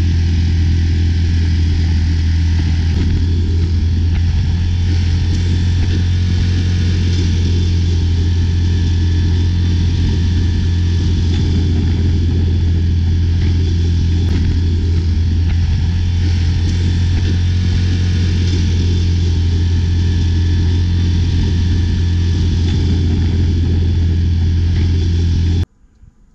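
Yamaha Grizzly ATV's single-cylinder engine running at a steady speed while riding across a frozen lake. It cuts off abruptly near the end.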